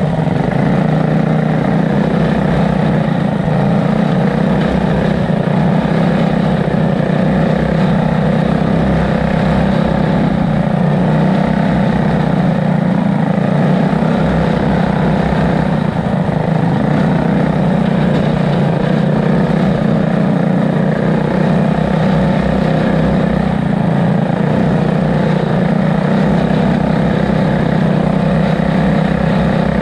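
A homemade dual-engine go-kart's pair of 212cc Tillotson single-cylinder engines running steadily under load as the kart drives along a dirt trail.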